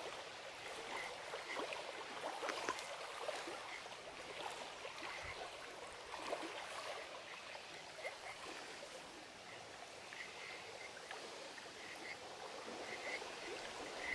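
Fallkniven F1 knife blade shaving thin curls down a split wooden stick to make a feather stick: faint, irregular scraping strokes over a steady hiss.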